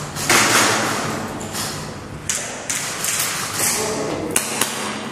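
Footsteps and scuffs on a hard, debris-strewn floor: a string of short thuds and taps, with a longer scrape about half a second in.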